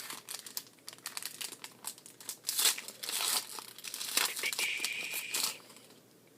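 Foil wrapper of a trading-card booster pack being crinkled and torn open: scattered crackles, then two longer, louder stretches of crinkling and tearing that stop shortly before the end.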